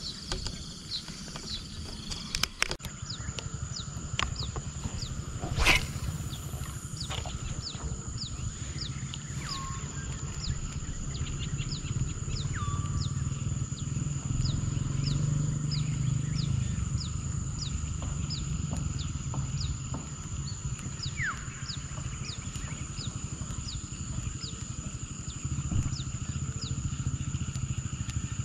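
Marsh ambience: a steady high-pitched insect drone with a short chirp repeated evenly about one and a half times a second, and a few lower bird-like calls, over a low rumble. One sharp knock about six seconds in.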